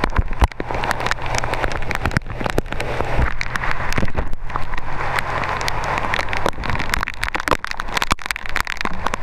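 Heavy rain falling, with many sharp close drop hits, over a steady low engine hum.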